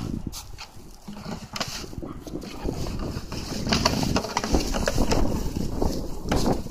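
A Hokkaido dog biting and pawing an empty plastic jug on dry grass, with scattered hollow plastic knocks and clicks and the rustle of grass. Wind rumbles on the microphone.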